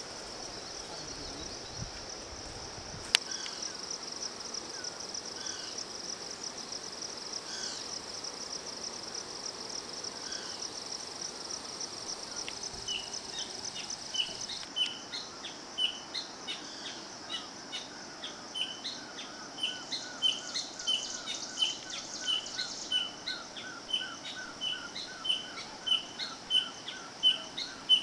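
Outdoor rural ambience: insects keep up a steady high-pitched drone, and from about halfway through a bird calls over it in a string of short repeated chirps, one or two a second. A single sharp click comes about three seconds in.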